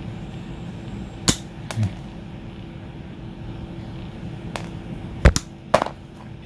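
TOHO 8-inch wire stripper plier cutting electrical cable: a handful of sharp snips and clicks, the loudest a little over five seconds in.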